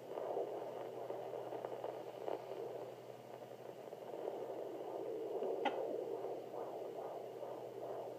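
Fetal heartbeat through a Sonoline B handheld fetal Doppler: a fast whooshing pulse of about two to three beats a second in static hiss. There is one sharp knock a little past halfway.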